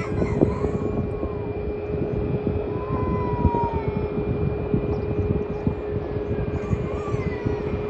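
Jet airliner landing at a distance: a steady engine rumble with a constant hum running through it as the plane flares and touches down on the runway.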